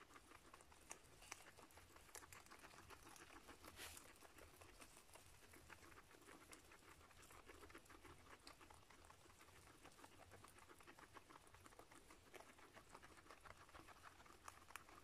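Faint, rapid crunching of a Peruvian guinea pig chewing fresh grass and hay: a dense run of small crackly bites and rustling stalks.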